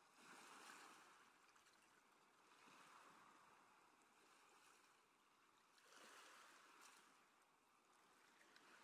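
Faint rush of sea water along the hulls of a sailing Wharram Tiki catamaran, swelling and fading about every three seconds.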